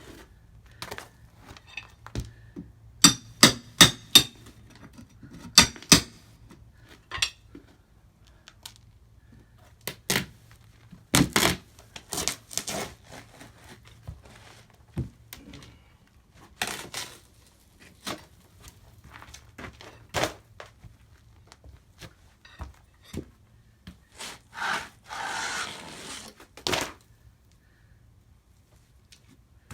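Hand demolition of a roofing-covered plywood sheet on wooden steps, pulling roofing nails and screws: a quick run of four ringing metal strikes a few seconds in, then scattered knocks and wooden thunks, and a rasping scrape for about two seconds near the end.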